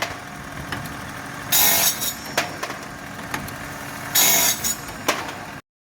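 Automatic-feed cutting machine running through its cycle. About every two and a half seconds there is a short, loud cutting burst, followed by sharp mechanical clicks as the next blank is fed. The sound cuts off abruptly near the end.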